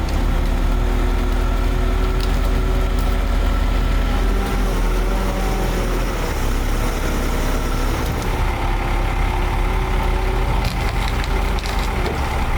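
Heavy engine of road-crew equipment running steadily with a deep rumble, with a few sharp knocks.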